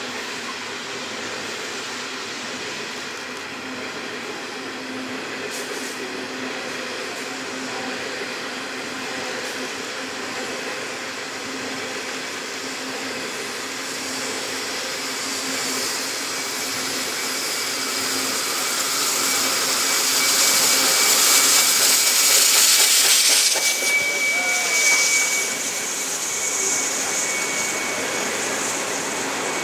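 NSWGR 59 class steam locomotive 5917 draws steadily nearer as a continuous hiss and rumble that grows louder, peaks, then drops away suddenly as the engine passes beneath. As the carriages follow, a thin high-pitched squeal holds steady over the running noise.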